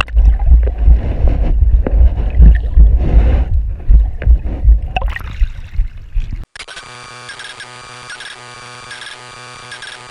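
Loud, irregular low thumping and rumble on a GoPro microphone. About six and a half seconds in it cuts off abruptly, and electronic intro music starts with a steady pulsing low note.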